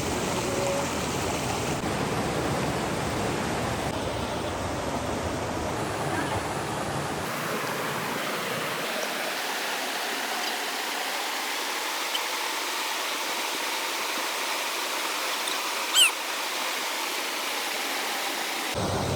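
Flowing river water, a steady, even rush. Its low rumble drops away about eight seconds in, and a single short, sharp chirp near the end is the loudest sound.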